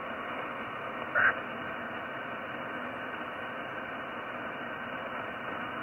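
Shortwave amateur radio transceiver in upper-sideband mode on the 15-metre band, giving a steady hiss of band noise through its speaker between calls. About a second in there is a brief, slightly louder snatch of signal.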